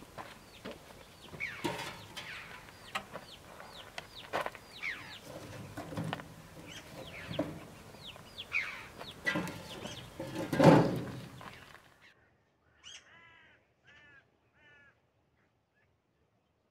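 Firewood knocking and clattering against a sheet-metal wood-fired oven as logs are pushed into the fire, with the loudest clunk about eleven seconds in; birds, including chickens, call throughout. After that it drops to quiet, with only a few short bird chirps.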